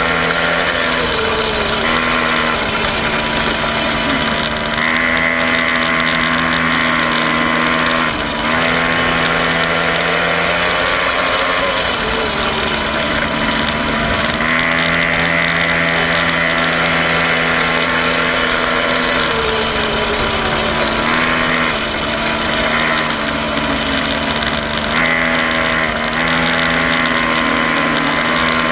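A quad bike's small engine running continuously, heard close up, its pitch dipping briefly and picking up again a few times as the throttle eases and opens.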